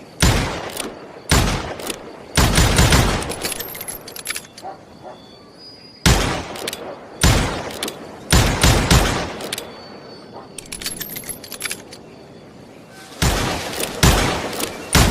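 Revolver quickdraw sound effect: a single gunshot, another about a second later, then a rapid string of shots, each with a reverberating tail, and light metallic clicks of the gun's mechanism in between. The sequence repeats about every six to seven seconds.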